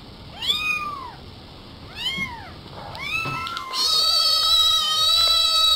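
Cat meowing: a few short rise-and-fall meows, then one long drawn-out meow, the loudest, in the second half.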